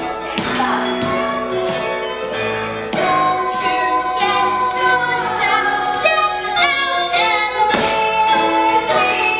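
Female voices singing a musical-theatre song together.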